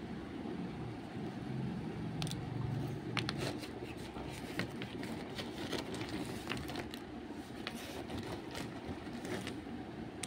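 Hard chunks of roasted nakumat clicking and knocking together as a hand rummages through them in a sack, with light rustling of the sack, over a steady low background rumble.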